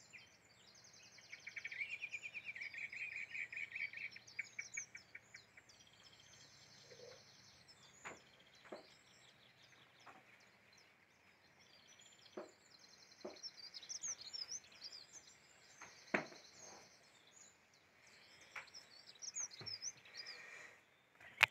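Wild songbirds singing and chirping, with a rapid trill a second or two in and many short high chirps after it. A few short soft knocks are scattered through the middle.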